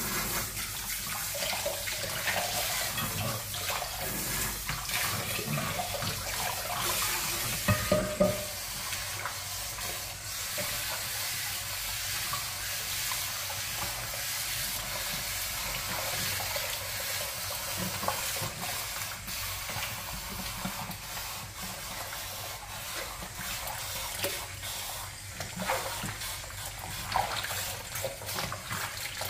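Water running from a handheld shower head into a plastic basin of soapy water while a cat is washed, with splashing from hands scrubbing its fur. A few brief louder knocks stand out about eight seconds in and near the end.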